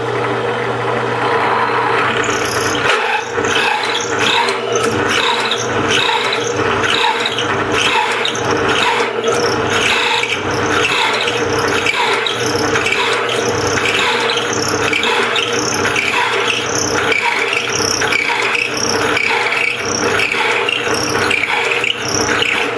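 Drill press running with a 2-1/8 inch hole saw boring through a wooden board. From about three seconds in, the cutting noise pulses in a steady rhythm of about two a second as the saw is run fast and plunged in and pulled out repeatedly, slinging the chips clear.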